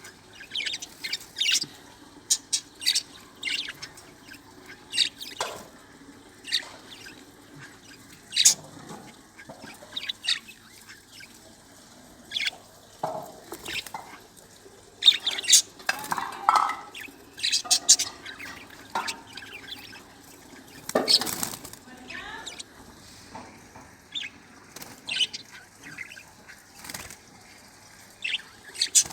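Budgerigars chirping and chattering in short, irregular high calls, with one louder, longer burst of sound about three-quarters of the way through.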